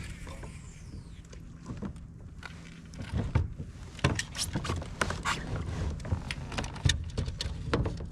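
Irregular knocks and clicks of gear being handled on a kayak, over a steady low hum. The knocks start about three seconds in.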